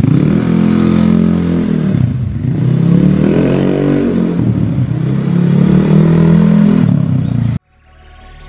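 Yamaha Mio scooter's engine revving, its pitch rising and falling several times, cutting off suddenly near the end.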